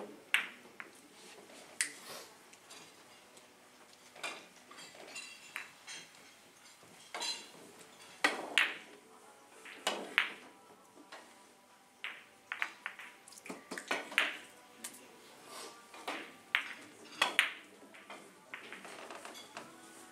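Carom billiard balls in three-cushion play: cue tips striking the cue ball and balls colliding, a series of sharp, irregularly spaced clicks, a few of them loud.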